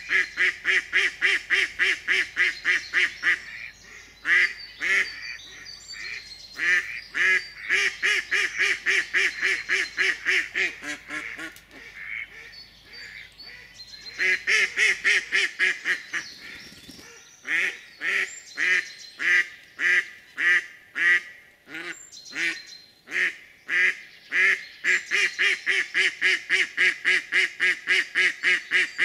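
Live decoy hen duck calling in long, fast runs of loud quacks, about four a second, with short breaks between runs. This is the hen's calling that draws drakes in.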